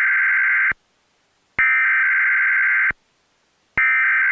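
Emergency Alert System SAME header: buzzy digital data bursts, each about a second and a half long with about a second of silence between, the header repeated in turn. The third burst starts near the end.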